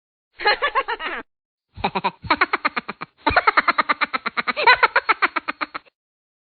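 Three short comic sound-effect clips played one after another with silent gaps between them; the last two are pitched and voice-like, pulsing quickly at about nine times a second.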